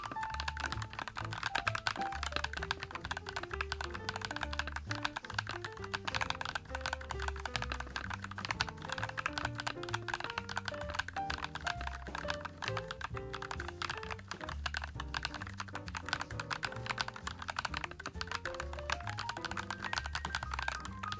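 Continuous fast typing on a YUNZII x Coolkiller CK75, a full-acrylic, gasket-mounted 75% mechanical keyboard with KSA-profile keycaps: a dense run of key clicks, heard over background music with a steady bass line.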